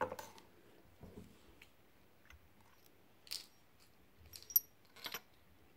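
A handful of short, sharp clicks and taps of small plastic toy figures being handled on a tabletop, with quiet in between; the loudest comes a little past the middle.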